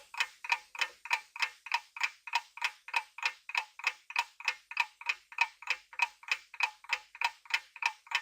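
Clock-ticking sound effect of a quiz countdown timer: a steady, even tick about four times a second.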